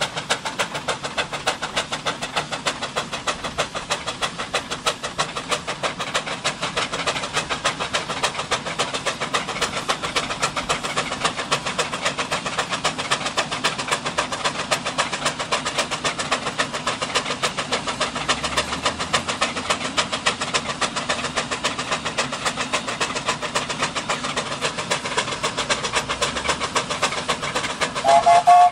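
Steam traction engines working hard under load, their exhaust chuffing in a quick, even beat. Near the end, a short steam whistle blast.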